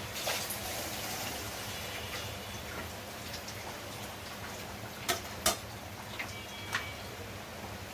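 Onions and ginger-garlic paste sizzling steadily in hot oil in a pan. A few sharp taps come through, two about five seconds in and one more shortly after.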